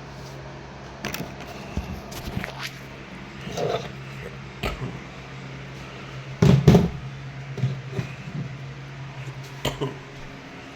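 Scattered knocks, clicks and clatters of objects being handled, the loudest cluster about six and a half seconds in, over a steady low hum.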